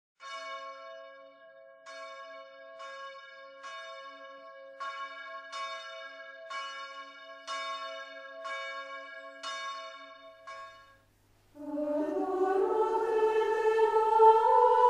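Church bells ringing, about a dozen strikes roughly a second apart, each hum ringing on under the next. Near the end the bells stop, and a choir begins singing Gregorian chant, louder than the bells.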